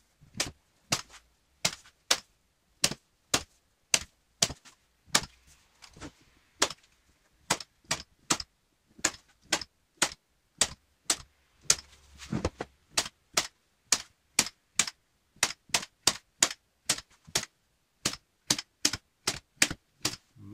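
Hand-held staple gun firing staples one after another to fasten a rubber mat onto a wooden box frame. A long run of sharp snaps, about two to three a second, with short pauses as it moves along the edge.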